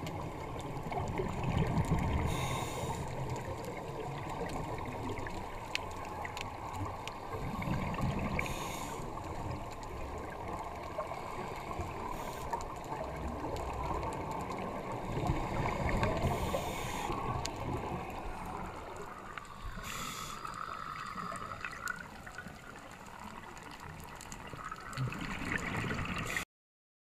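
Muffled underwater sound through a diving camera's housing: a low rumbling water noise with a short burst of scuba regulator exhaust bubbles every few seconds. The sound cuts off suddenly near the end.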